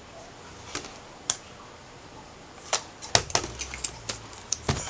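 Small piece of aluminium foil being handled and crinkled: a couple of isolated sharp clicks, then a dense run of irregular clicks and crackles from about halfway.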